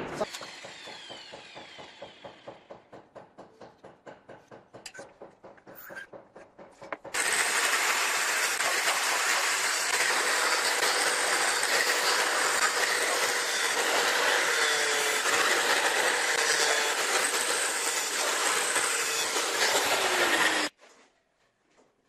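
Angle grinder with an abrasive disc grinding the end of a natural stone slab: a loud steady grinding that starts about seven seconds in and cuts off suddenly near the end. Before it, a fading sound with a quick rhythmic ticking.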